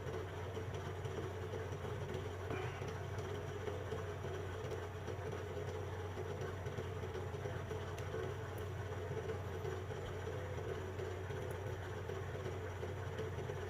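A steady low hum that holds unchanged, with one or two faint ticks.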